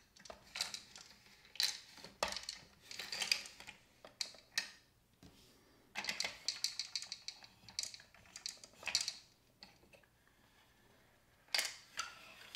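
Plastic gears of a Downspin game clicking and rattling in short bursts as they are twisted by hand and key, with small plastic tokens clattering through them.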